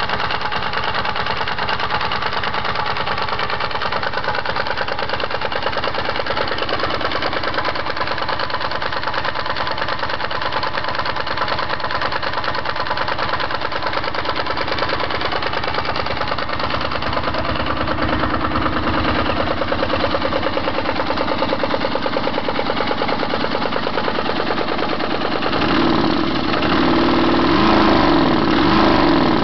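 Water-cooled Kipor V-twin diesel engine of about 20 hp, fitted in a Harley-Davidson Electra Glide, running steadily at idle with even firing pulses. From about 25 seconds in, the revs rise and fall a few times.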